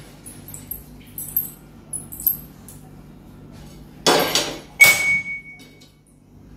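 Steel kitchen utensils clinking lightly. About four seconds in comes a brief clatter, then a sharp metal clang that rings on for about a second.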